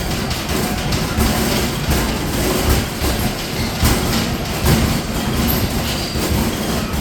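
Arcade basketball machine in play: basketballs thudding against the backboard and rim and rumbling back down the return ramp in a steady, irregular clatter of knocks.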